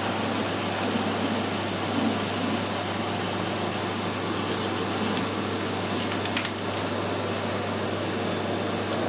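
Metal lathe running while a parting tool cuts through brass bar stock, a steady machining noise over the motor's low hum. About six seconds in there are a few light metallic clinks, consistent with the parted-off brass piece dropping.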